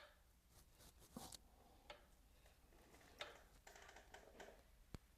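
Near silence: room tone with a faint steady low hum and a few scattered faint clicks and rustles.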